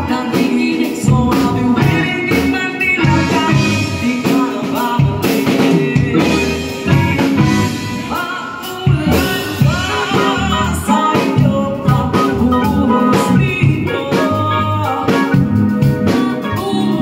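Live band playing with electric guitars, keyboard and drum kit, under a woman and a man singing a duet into handheld microphones through a PA.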